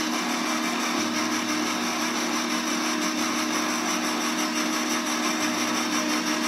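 KitchenAid stand mixer running steadily, its motor giving a constant hum and whine as the dough hook turns the first dry mix of pizza dough in the steel bowl.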